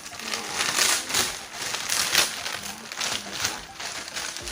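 A mail-order parcel's packaging being handled and opened by hand: irregular crinkling and rustling with quick crackles throughout.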